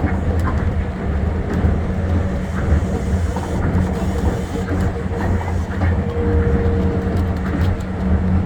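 Tokyo Monorail 1000-series train running along the guideway: a steady low rumble of its rubber tyres with a faint even hum over it.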